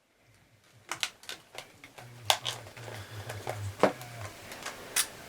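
Sharp plastic clicks and taps from a camcorder's body being handled after reassembly, about nine irregular clicks over five seconds, with a faint low hum underneath from about two seconds in.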